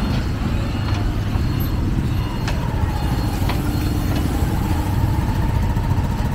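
Steady low rumble of a motor vehicle's engine running, with two faint clicks about a second apart midway.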